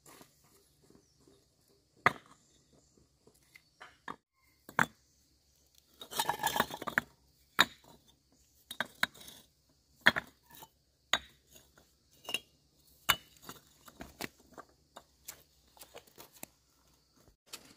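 Hard objects knocking and clinking against each other in single sharp strikes every second or so, with a denser clatter about six seconds in.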